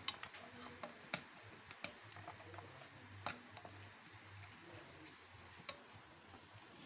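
A handful of faint, scattered clicks and taps from multimeter probe tips touching component legs on a TV circuit board, over a faint low hum.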